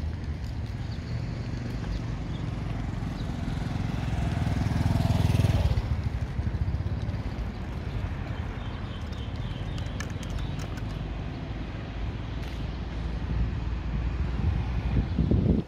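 A motor vehicle passes, loudest about five seconds in, over a steady low outdoor rumble.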